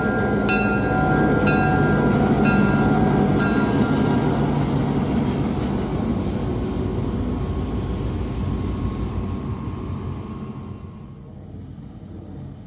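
Locomotive bell ringing about once a second and stopping about four seconds in, over the low rumble of a train running, which fades near the end.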